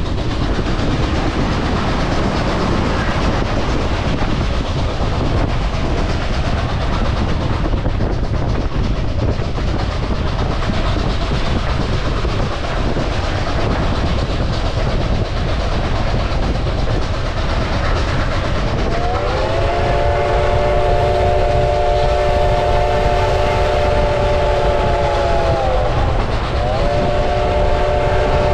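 Reading & Northern #2102, an ex-Reading T-1 4-8-4 steam locomotive, running by with a steady rumble and clatter of the train. About two-thirds of the way in, its chime whistle sounds one long blast of several notes together, breaks briefly, and starts a second long blast near the end.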